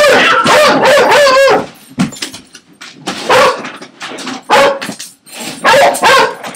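Pet animals' vocal calls: one long wavering call at the start, then three shorter calls with pauses between.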